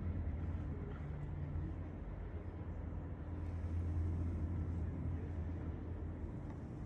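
Outdoor background ambience in a garden: a steady low rumble with a soft hiss over it, swelling slightly about four seconds in.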